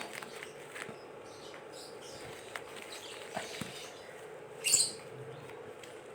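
Quiet background with a faint steady hum and a few soft clicks, broken once, about three-quarters of the way in, by a short high-pitched chirp.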